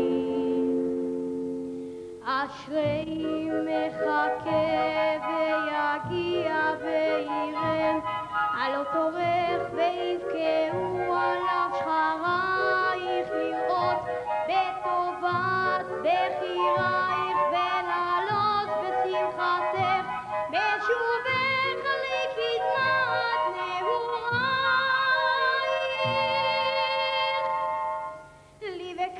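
A boy soprano singing long, wavering ornamented lines into a microphone, accompanied by a symphony orchestra with strings. The voice breaks off briefly about two seconds in and again just before the end.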